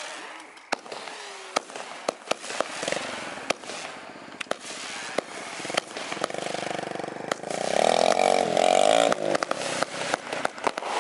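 Ground firework fountain crackling, with many sharp pops throughout. From about six seconds in, an engine revs up and runs loudly for about three seconds, then drops away.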